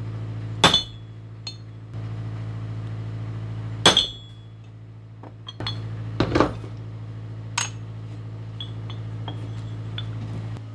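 Hammer blows on metal pipe flanges resting on a wooden block: two sharp strikes with a short metallic ring, a quick cluster of knocks and one more blow, then lighter clinks as the flanges are handled. A steady low hum runs underneath.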